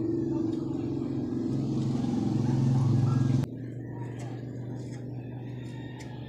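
A motor vehicle engine running steadily, growing louder, then dropping abruptly about three and a half seconds in to a quieter steady hum.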